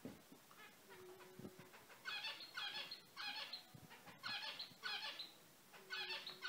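Zebra finches calling: a run of short, repeated calls, about two a second, starting about two seconds in, with fainter calls before.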